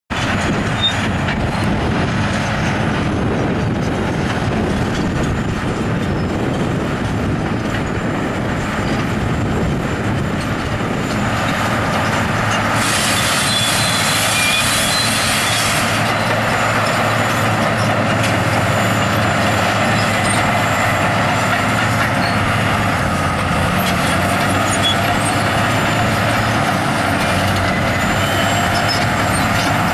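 Hitachi EX750 excavator and other heavy diesel earthmoving machinery running steadily under load. A hiss comes in about 13 seconds in and lasts about three seconds.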